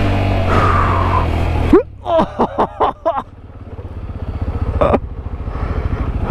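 Motorcycle engine running under way with wind noise, cutting off abruptly about two seconds in. Brief voice sounds follow, then the engine sound comes back as a low, evenly pulsing idle, with a sharp click just before it.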